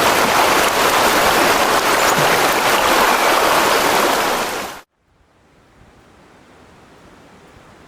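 Loud, steady rushing water, cut off abruptly about five seconds in, followed by a faint steady hiss.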